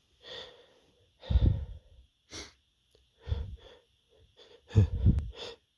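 A man's gasping, wheezy in-breaths as a sneeze builds up, about five short bursts with pauses between, the strongest about a second and a half in and near the end.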